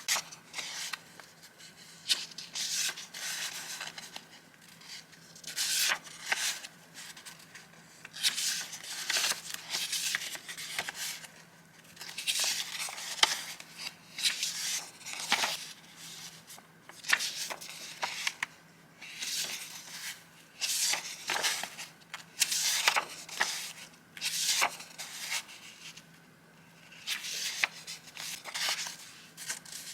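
Vintage paper and stickers being handled: rustling and crinkling in irregular bursts every second or two, with a few sharp crisp snaps.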